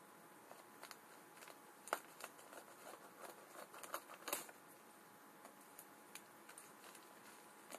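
Scissors snipping through a taped plastic mailing bag, with light crinkling of the plastic. The snips are faint and irregular, the sharpest about two seconds in and again just past four seconds.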